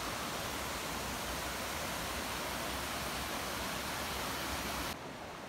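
Mountain stream rushing over boulders and rocks, a steady hiss of running water. Near the end it drops suddenly to a quieter, duller rush.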